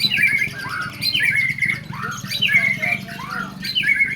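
Songbird at a bird-singing contest, singing the same short chirpy phrase over and over, about once every 1.2 seconds, four times. A steady low hum runs underneath.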